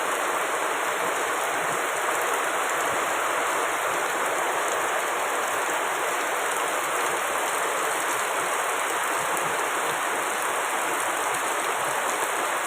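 Steady heavy rain falling on surfaces: an even, unbroken hiss.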